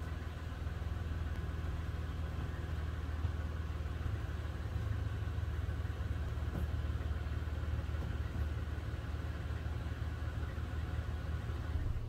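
A 2018 Toyota Sienna's 3.5-litre V6 idling with a steady, even low hum, the engine running while the trailer lights are tested.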